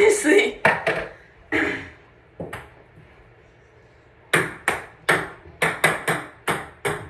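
Ping pong ball bouncing on a hard surface, each bounce a sharp ringing click. A few scattered bounces, a short pause, then a steady run of about three bounces a second from about four seconds in.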